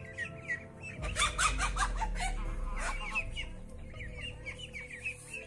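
Chicken squawking and clucking as a goose attacks it, loudest and most frantic from about one to three seconds in, with many quick high calls throughout, over steady background music.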